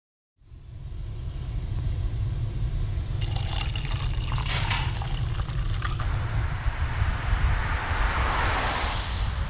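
Liquid pouring and splashing into a glass, with crackly noise in the middle and a hiss that swells toward the end, over a steady low rumble.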